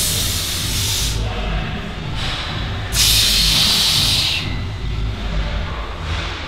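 Two forceful hissing exhalations from a bodybuilder straining to hit and hold his posing: a breath about a second long at the start, then a louder, longer one from about three seconds in, over a steady low rumble.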